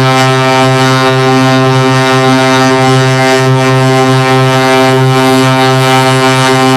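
A steady, loud, low buzzing drone: one unchanging low pitch with many overtones and a hiss over it, like a horn held on, from a looped helium sound effect.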